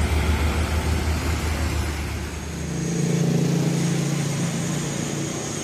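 Heavy truck diesel engine rumbling deep and low as an LPG tanker truck passes close by. About two and a half seconds in, the rumble gives way to a steadier, higher engine hum of lighter traffic on the hill road.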